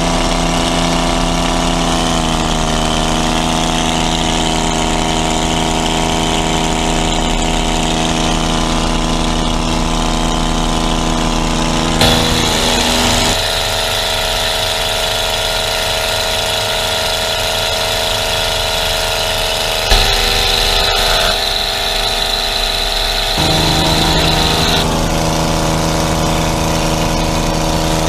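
Utva 66 light aircraft's piston engine droning steadily, heard from inside the cabin, its tone changing abruptly several times.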